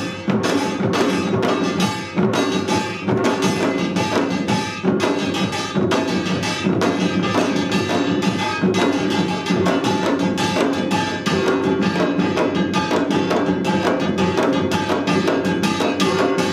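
Samul nori ensemble of janggu hourglass drums, buk barrel drums and kkwaenggwari gongs playing an Utdari rhythm: a fast, dense, steady drumbeat with bright metallic gong ringing over it.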